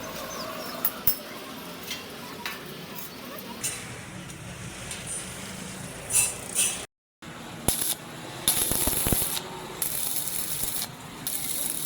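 Metalworking workshop sounds: scattered sharp clicks and metal knocks, with several bursts of hissing in the second half. The sound drops out completely for a moment about seven seconds in.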